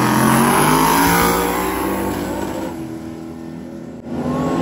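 Drag-racing pickup truck engines at full throttle launching down the strip, the sound fading as they pull away. About four seconds in it breaks off abruptly and a loud engine comes back.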